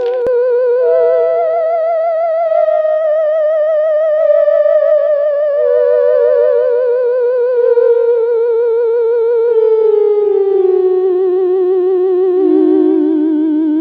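Eerie theremin-style horror tone, a single wavering note with a wide, regular vibrato. It steps up about a second in, then slides slowly downward in pitch through to near the end.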